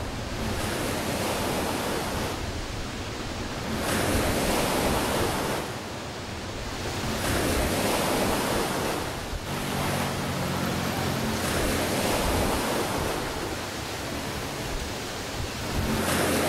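Storm waves surging over a low shore and seawater rushing through flooded ground, with wind blowing. The rushing water swells louder every few seconds as each surge comes in.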